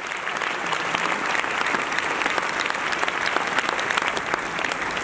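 A large auditorium audience applauding: dense, steady clapping from thousands of hands.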